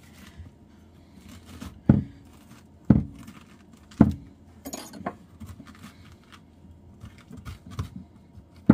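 Metal spoon scraping seeds and stringy pulp out of a halved raw butternut squash, with faint scraping between sharp knocks: three about a second apart, then the loudest one right at the end.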